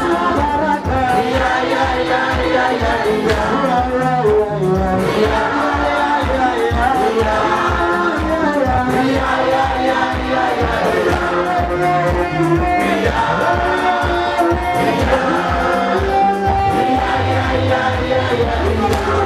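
Live gospel music: a lead singer with backing singers over electronic keyboards, a fast steady beat and a bass line.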